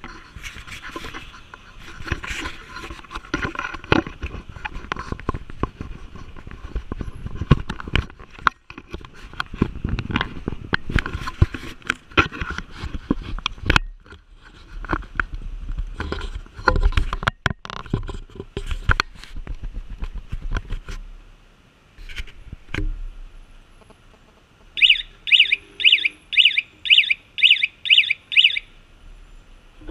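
Close handling noise of knocks, taps and rustling on a camera mounted on a motorcycle. Near the end come about eight short, high electronic beeps, roughly two a second.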